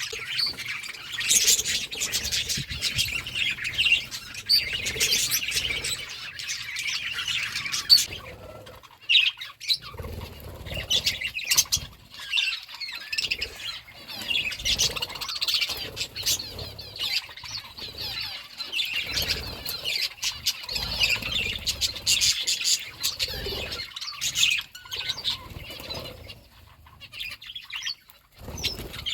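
Budgerigars chattering and chirping continuously, with brief lulls about a third of the way in and near the end. Low rustling and thumps run underneath.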